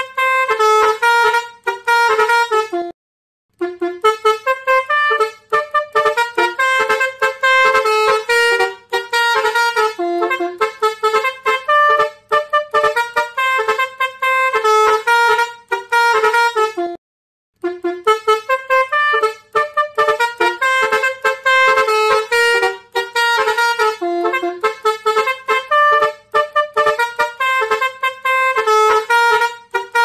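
Basuri horn, the Indonesian melody-playing truck air horn, playing a fast tune of short, quickly changing horn notes. It breaks off briefly twice, about 3 seconds in and again around 17 seconds.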